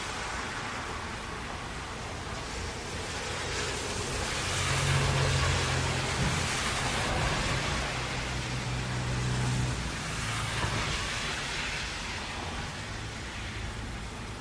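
Steady hiss of heavy rain over traffic on a wet road. About four seconds in, a vehicle passes: its low engine hum and the swish of tyres on the wet road swell, then fade some six seconds later.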